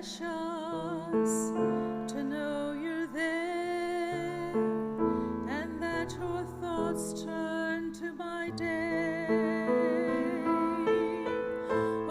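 Slow, gentle worship music on piano, with a held melody line that wavers with vibrato over changing chords.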